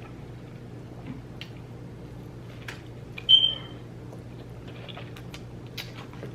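Mouth sounds of someone eating a sandwich: faint scattered clicks of chewing over a steady low hum, with one short, high squeak about three seconds in that is the loudest sound.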